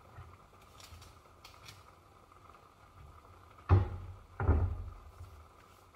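Overhead kitchen cabinet being rummaged: two loud thumps of the door and its contents knocking, about three and a half and four and a half seconds in, with a few faint clinks before.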